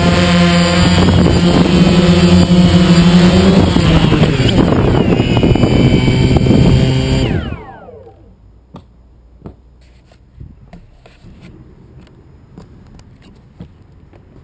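DJI Phantom quadcopter's motors and propellers whining loudly, heard from the drone's own onboard camera. About seven seconds in the motors spin down with a falling pitch and stop, leaving only faint scattered clicks.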